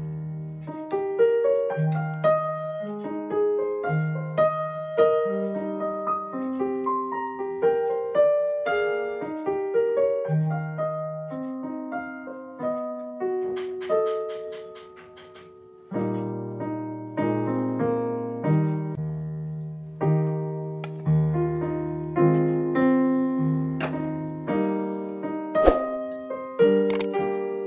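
Background piano music: a melody of separate struck notes, each fading away, over a repeating low bass note. Near the end come two sharp clicks.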